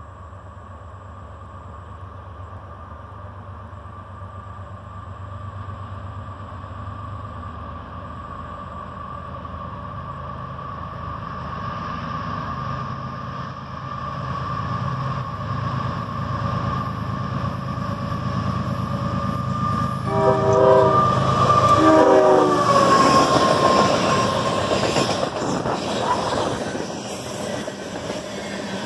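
CSX freight train approaching: the diesel locomotives' low rumble and a steady high whine grow louder, then about 20 seconds in the lead locomotive's horn gives a quick series of short toots, a friendly greeting from the crew. The locomotives then pass close by, the loudest moment, with the whine dropping in pitch, followed by the clatter of the train.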